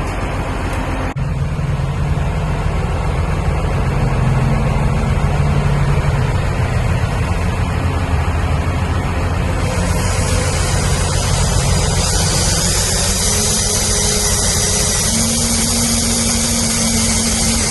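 A vehicle engine running steadily with a low, pulsing rumble. A hiss rises about ten seconds in and a steady tone joins it a few seconds later.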